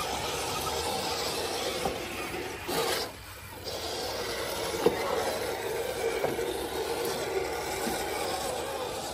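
Electric motor and gearbox of a 1/10-scale RC crawler whining steadily as it crawls over rough ground, with tyres rubbing and scraping. It stops briefly about three seconds in, then carries on, with a single sharp knock about five seconds in.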